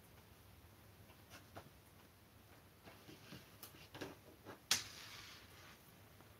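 Plastic pet brush drawn through a cat's fur in faint, scratchy strokes, with one sharper click about four and a half seconds in, followed by a brief rustle.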